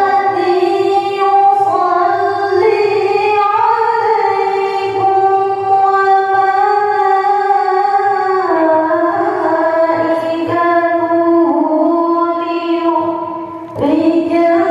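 A woman reciting the Qur'an in the melodic tilawah style through a microphone. It is one long phrase on held notes that move up and down in steps, followed by a brief breath near the end and the start of a new phrase.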